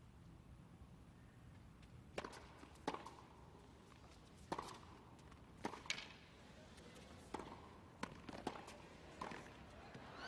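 Tennis rally: a ball struck back and forth with racquets, about eight sharp pops of racquet hits and ball bounces starting about two seconds in, over a hushed indoor crowd.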